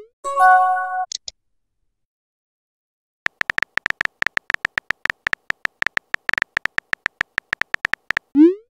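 Texting-app sound effects: a short chime about half a second in as a new message arrives, a pause of about two seconds, then rapid phone-keyboard typing clicks for about five seconds, ending in a short rising swoosh as the typed message is sent.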